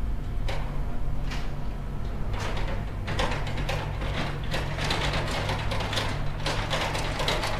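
Bulldozer's diesel engine running steadily under load, with repeated metallic clanks and rough scraping noise from the machine working.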